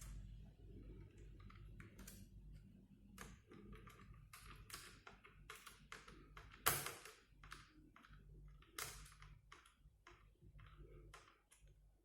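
Faint, irregular light clicks and taps of hands working on a laptop, with one sharper, louder click about seven seconds in.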